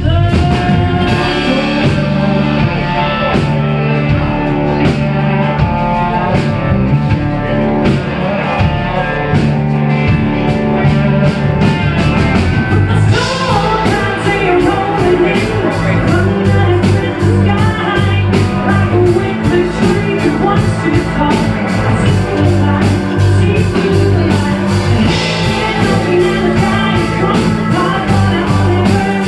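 Live blues-rock band playing with a steady drum beat, bass and electric guitar.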